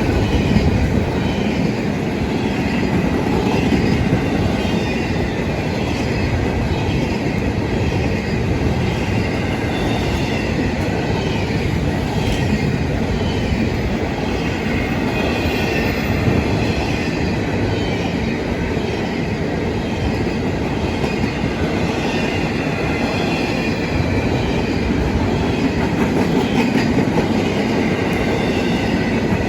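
Freight train cars rolling past: a steady rumble with the clatter of wheels over the rail joints.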